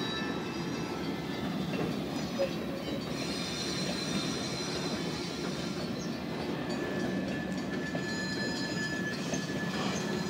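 Coal hopper cars of a slow-moving freight train rolling past: a steady rumble of steel wheels on rail, with thin high wheel squeals that come and go.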